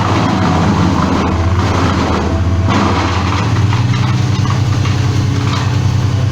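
An engine running steadily at an even speed, a low constant hum.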